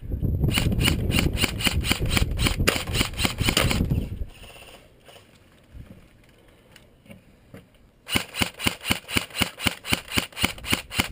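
Airsoft gun firing rapid strings of shots, about six a second: one string of about three seconds, a pause, then a second string of about three seconds near the end.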